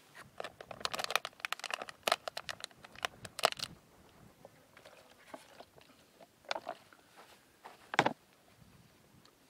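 Crinkling and crackling of Sawyer water-filter gear being handled while water is filtered: a quick run of plastic crackles for the first few seconds, then a few single clicks.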